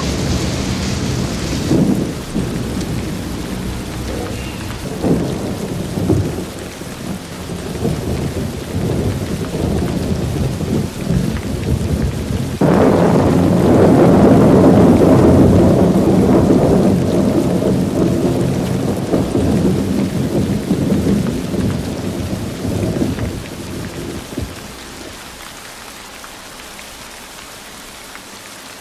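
Thunderstorm: rain falling under low, rolling thunder with a few sharp cracks. About halfway through a loud thunderclap breaks in suddenly and rumbles for about ten seconds before fading, leaving steady rain.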